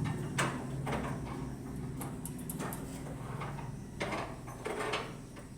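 Scattered metal knocks, clinks and scrapes as a truck engine is shifted into line with its transmission, over a steady low hum.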